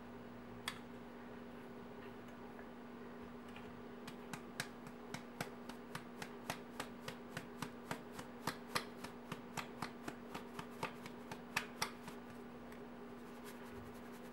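Stainless steel sieve being tapped and shaken to sift flour: one tick about half a second in, then a run of light ticks, three to four a second, for about eight seconds in the middle.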